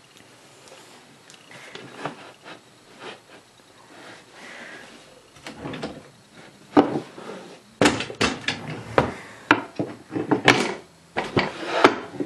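Knocks, clicks and clatter of office-chair parts being handled and fitted: the chair's back bracket and seat mechanism worked by hand. Light handling at first, then a quick run of sharp knocks from about halfway on.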